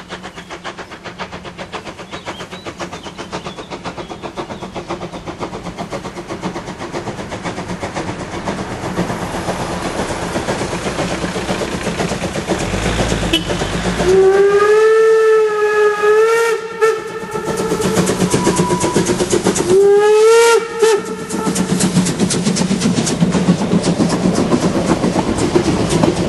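Narrow-gauge steam locomotive working hard uphill, its fast, steady exhaust beats growing louder as it approaches. It sounds its steam whistle in a long, slightly wavering blast about 14 seconds in, then a short blast about 20 seconds in. Near the end the coaches roll past.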